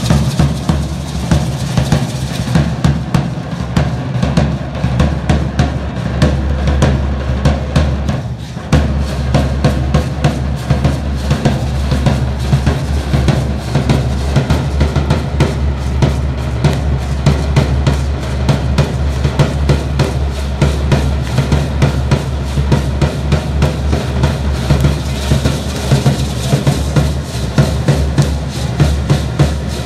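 Drums for a Matachines dance beaten in a fast, continuous rhythm, with deep bass-drum strokes.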